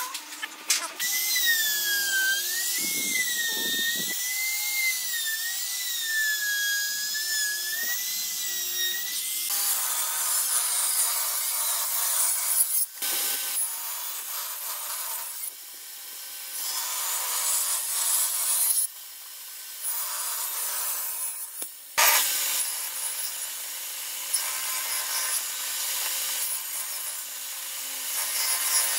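Table saw running and cutting through wooden boards, heard in several short clips that change abruptly. A wavering high-pitched whine runs through roughly the first nine seconds.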